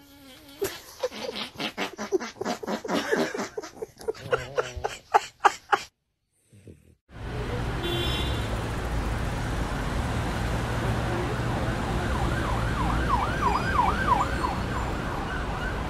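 A dog making short, irregular snuffles and grunts, several a second, which stop about six seconds in. After a short silence comes steady street noise, and in the last few seconds a siren wails in quick rises and falls, about four a second.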